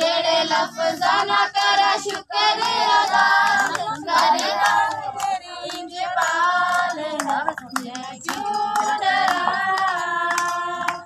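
A congregation of women and children singing a worship song together, clapping along to a steady beat; the singing breaks off briefly about two seconds in.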